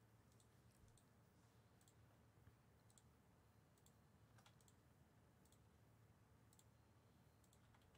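Near silence: faint room tone with a low hum and scattered, faint clicks of a computer mouse and keyboard in use.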